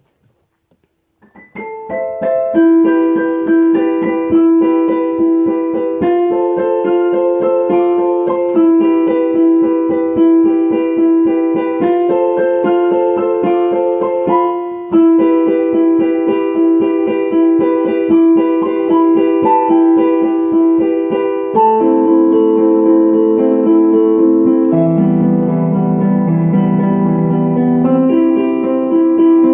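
Piano playing a simple tune. It begins about two seconds in, with a note struck over and over under a melody, and lower notes come in past the middle.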